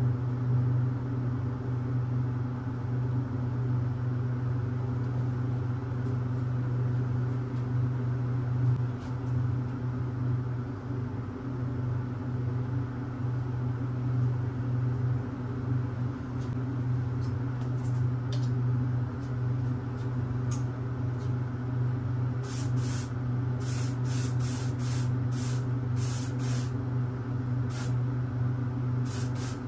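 Compressed-air paint spray gun hissing in short bursts as the trigger is pulled, sparse at first and frequent in the last third, over a steady low machine hum.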